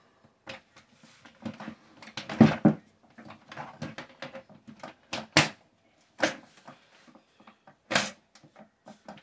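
Knocks, clicks and clatter of a PC case and its panels being handled, with a few sharp knocks about five, six and eight seconds in.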